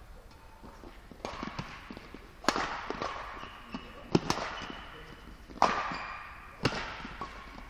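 Badminton rackets striking a shuttlecock in a rally: four sharp hits about a second and a half apart, each echoing in the hall.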